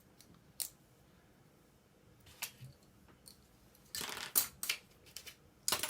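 Plastic parts of an old computer keyboard being handled and pried apart: a few sharp, separate clicks and snaps, with a brief cluster of scraping clicks about four seconds in and a sharp snap near the end.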